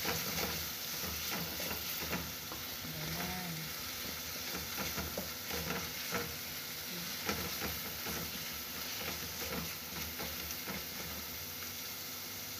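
Onion and tomato paste sizzling in oil in an aluminium pot, with a steady hiss, while a wooden spoon stirs and scrapes it, making frequent small knocks and scrapes against the pot.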